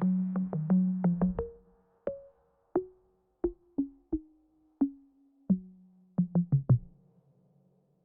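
Electronic music: short, plucked-sounding synthesizer notes with sharp attacks, in a quick run for the first second and a half, then sparser single notes that stop about seven seconds in, leaving a faint low hum.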